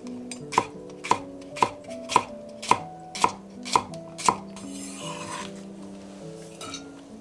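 Kitchen knife slicing through daikon radish onto a wooden cutting board: eight even chops about two a second, then a brief rustle.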